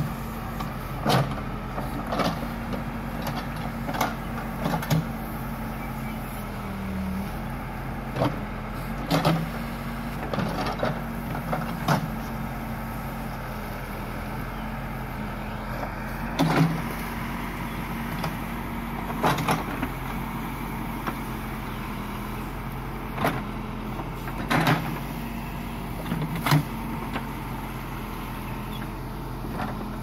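Case backhoe loader's diesel engine running steadily while the backhoe arm works brush out of a ditch, with short sharp knocks every one to three seconds.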